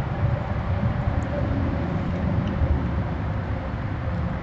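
Steady low rumble of outdoor background noise, flickering unevenly.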